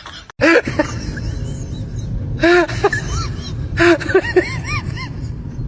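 Short, high-pitched animal calls, each rising and falling in pitch, coming in several quick clusters over a steady background noise.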